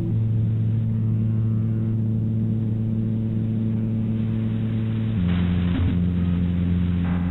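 Ambient drone music: low sustained tones that step down in pitch about five seconds in, with a short hiss just after the change.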